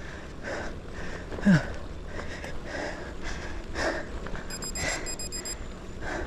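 A cyclist breathing hard and rhythmically while pedalling up a short, steep climb, over low wind rumble on the microphone. A short run of high electronic beeps comes about five seconds in.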